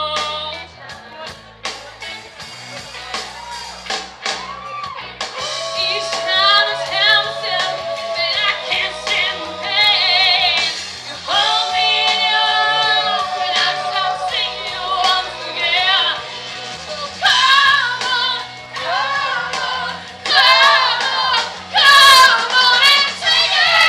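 Music with a woman singing long held notes with vibrato. It starts quieter and grows fuller after about five seconds.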